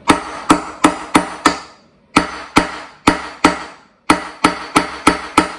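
Claw hammer striking a steel punch set on the centre of a Stihl blower's crankshaft, in three quick runs of four or five sharp, ringing blows each. The blows are meant to knock the flywheel loose from the crankshaft, where it is stuck on with the flywheel key.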